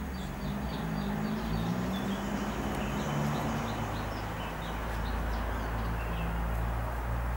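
Small birds chirping repeatedly, over a low steady rumble and a low wavering drone in the first few seconds.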